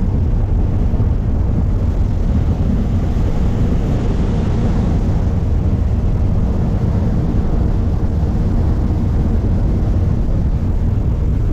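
A small boat's engine running steadily under way: a loud, continuous low rumble with a rushing hiss over it.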